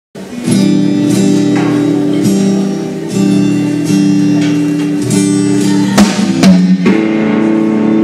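Live band playing: guitar chords over a drum kit with regular cymbal strikes, starting about half a second in, with two louder drum hits near six seconds.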